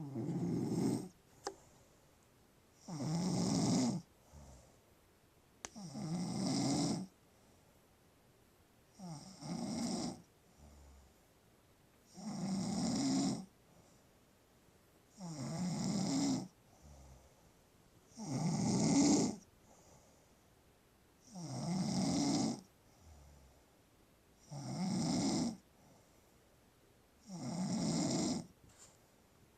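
A drunk young woman snoring in her sleep. There is one snore about every three seconds, about ten in all, each lasting about a second, with quiet breathing between them.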